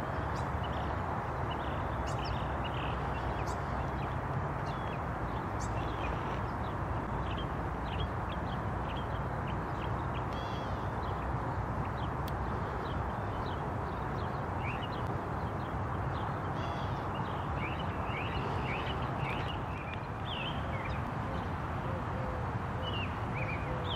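Small birds chirping in the background: many short, high chirps and trills, busier in the second half, over a steady low rushing noise.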